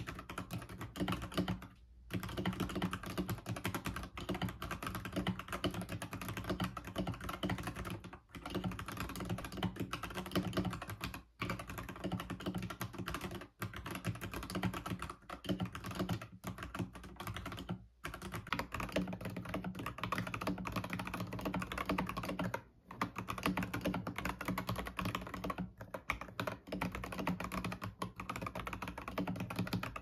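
Fast typing on a mechanical keyboard: a dense run of key clacks, broken by short pauses every few seconds.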